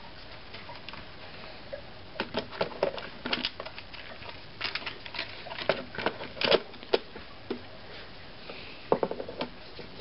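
Hard plastic clicking and knocking as the bottom cover of a Mr. Coffee JWX31 coffee maker is handled and fitted back onto the base: irregular clusters of sharp clicks starting about two seconds in, with a last short cluster near the end.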